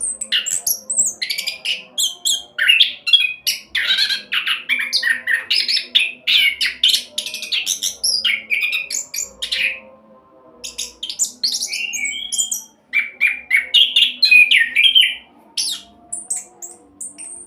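Chestnut-capped thrush (anis kembang) singing a fast, rolling song of rapid, varied chirps and whistles. There is a short pause a little past the middle and another near the end.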